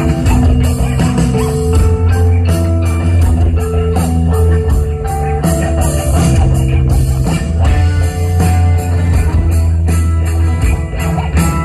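Rock band playing live: electric guitars over bass and drums keeping a steady beat.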